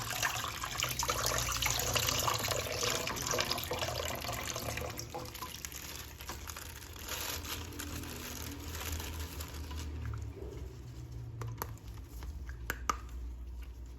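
Water running from a tap and splashing as a plastic action figure is rinsed clean; the water stops about ten seconds in, followed by a few light clicks of the toy being handled.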